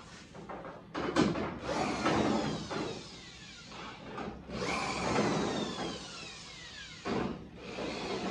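Corded electric cutoff tool running in three bursts, its pitch falling each time it lets off, as it cuts through the overlapped sheet steel of a replacement quarter panel and the original panel beneath.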